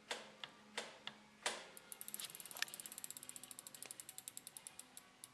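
Bicycle rear freewheel pawls ratchet-ticking as the refitted rear wheel is spun and coasts down. The ticking starts fast about two seconds in and slows steadily until it stops near the end. A few sharp clicks come before it.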